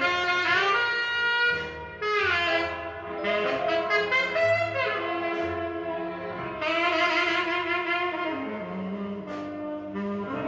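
Recorded saxophone music played through a DIY parallel single-ended tube amplifier into vintage 12-inch Philips full-range speakers: long melodic notes with slides between them over a bass line.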